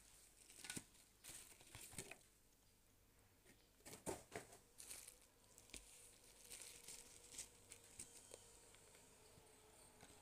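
Bubble wrap and a thin foam packing sheet being handled and unwrapped, faintly rustling and crinkling in an irregular string of crackles, loudest about four seconds in.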